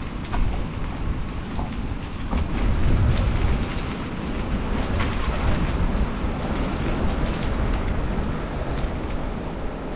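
Steady rumble and rattle of a bicycle rolling along a city street, with wind on the microphone and scattered clicks.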